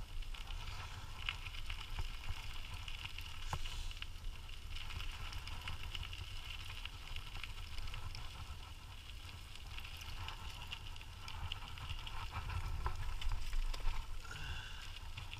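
Dog scooter rolling along a trail behind two harnessed dogs: a steady crackling hiss of the tyres on the ground with small ticks, over a low wind rumble on the microphone.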